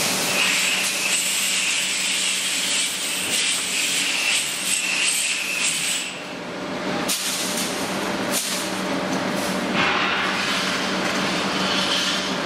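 Shrink wrapping machine and its heat shrink tunnel running: a steady machine hum under a hiss with a high whine that drops away about six seconds in. Two knocks about a second and a half apart near the middle, and a broader noise comes back near ten seconds in.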